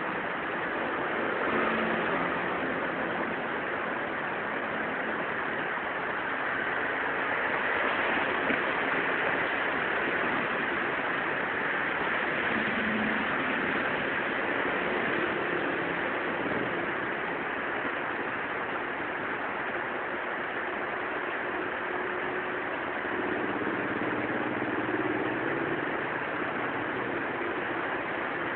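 Steady hiss of rain and wet road traffic, with cars passing on the wet road and their tyres hissing through the water.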